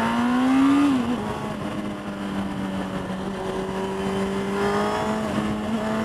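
Honda CBR900RR's inline-four engine pulling under acceleration. Its pitch climbs, drops sharply at a gearshift about a second in, holds steady, then climbs again near the end, over steady wind rush.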